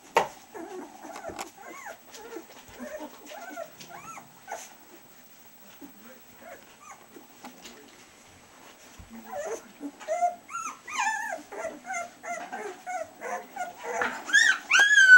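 Two-week-old collie puppies whimpering and squealing in many short cries that rise and fall in pitch, quieter for a few seconds midway, then louder and higher near the end.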